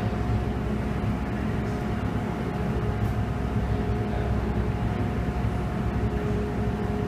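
Ferry's engines running steadily: a low rumble with a steady hum over it.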